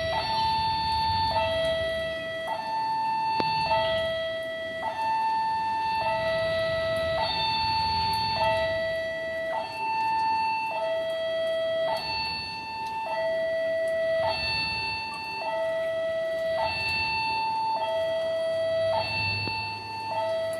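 Railway level-crossing warning alarm sounding for an approaching train: an electronic two-tone signal that alternates steadily between a higher and a lower tone, each held a little over a second, over a low rumble. A low steady hum joins near the end.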